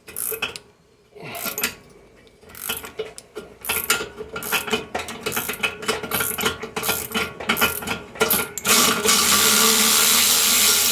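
Ratchet wrench clicking in rapid runs as it backs out a torch-heated, rusted exhaust flange bolt, followed for the last couple of seconds by a steady loud hiss.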